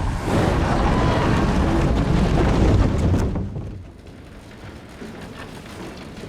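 World War I battlefield sound from a film soundtrack: loud, dense explosion rumble that dies down about three and a half seconds in, leaving a quieter steady hiss like rain.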